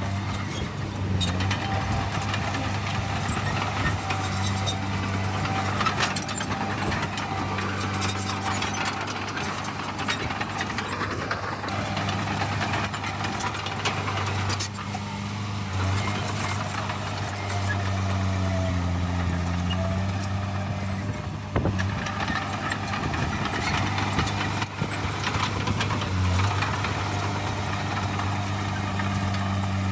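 Heavy diesel engine of earthmoving machinery running steadily. Its pitch sags and recovers briefly a couple of times as it takes load, with occasional knocks.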